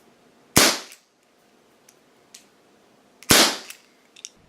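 Ruger Super Hawk CO2 BB air revolver firing two shots about two and a half seconds apart, each a sharp crack with a brief echo, with faint clicks between them.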